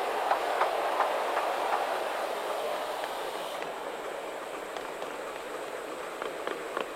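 Miniature railway carriage wheels rolling along the rails, clicking over rail joints about two or three times a second at first. After a couple of seconds the rolling noise grows quieter and the clicks come only now and then.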